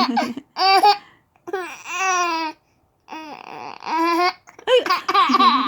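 Baby laughing in a string of five high-pitched voiced bursts, some short and some over a second long, the pitch bending up and down.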